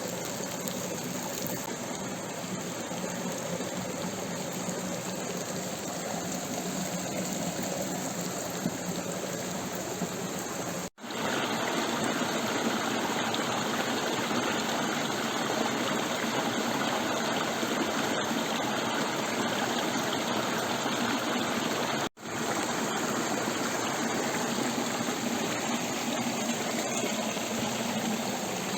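Stream water running steadily. It breaks off for an instant twice, and the middle stretch is a little louder.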